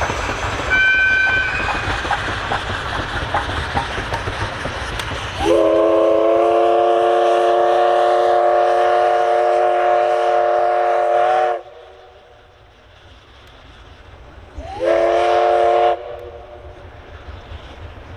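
A passing train rattles over the rail joints, with a brief high-pitched horn note about a second in. Then the D51 steam locomotive's whistle sounds one long chime-like blast of about six seconds, sliding up to pitch at the start and cutting off sharply. A second short blast follows near the end.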